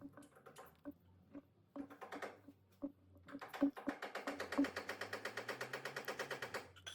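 Rapid, evenly spaced mechanical clicking like a ratchet, about eight clicks a second, starting about halfway through and stopping suddenly near the end, after a few scattered handling knocks.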